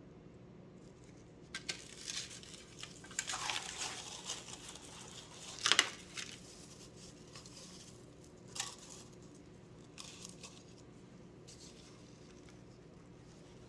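Handling noises from the demonstration table: rustling and crinkling with scattered clicks, busiest in the first half, and one sharp knock about six seconds in.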